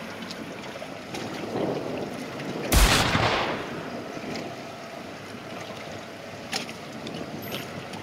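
Water and wind noise aboard a small fishing boat at sea, with one loud sudden slap about three seconds in that dies away over a second, like a wave hitting the hull, and a couple of faint clicks near the end.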